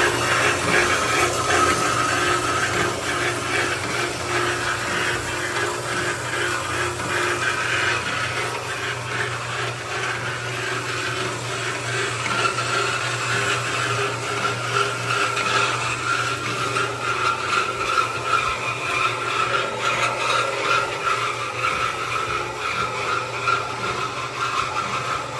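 Baileigh BS-260SA semi-automatic metal-cutting bandsaw running, its motor humming steadily and its blade drive whining.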